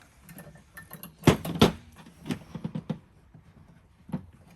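Thin metal strapping and its buckle clinking and knocking while the strap is sized and tightened around a hive box: two loud knocks a little after a second in, then a string of lighter clicks and one more near the end.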